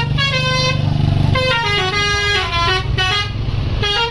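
Basuri multi-tone 'telolet' bus horn playing a quick melody of short stepped notes, over the low running of the bus's engine.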